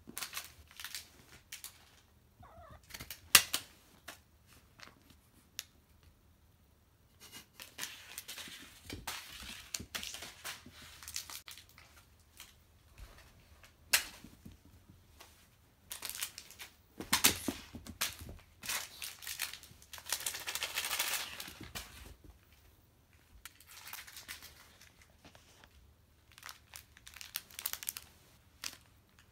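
A Norwegian Forest Cat moving about on a wooden floor: scattered sharp clicks and scuffs, and several rustling stretches lasting a second or more, with quiet spells between them.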